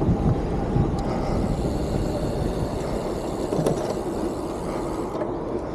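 Wind buffeting the microphone, with road noise, as a Yamaha Crosscore RC e-bike rides along a concrete street at about 23 mph. It is a steady, gusty rush, strongest in the low range.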